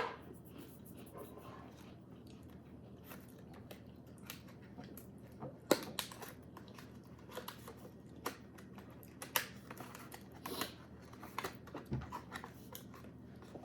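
Faint, scattered crunches and crackles of crisp, thin wafer cookies being bitten and handled, with light packaging rustle.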